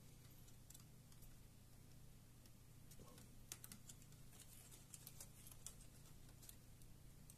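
Near silence with a few faint small clicks: fingers working a flex cable connector on a laptop mainboard to release the cable.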